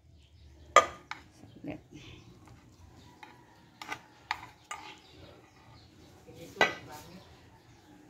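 Metal ladle and spoon clinking and scraping against glass baking dishes while spaghetti sauce is spooned onto pasta and mixed in. There are about six sharp separate clinks, the loudest about two-thirds of the way through.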